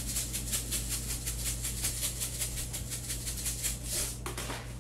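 Dried diced onion being shaken out of a plastic spice shaker over a bowl of diced chicken: a quick, even rattle of many shakes a second, with a brief pause near the end.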